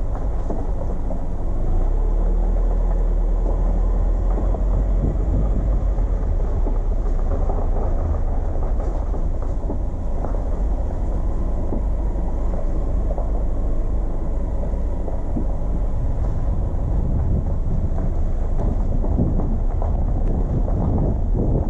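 A car driving along a road: a steady, deep rumble of road and engine noise.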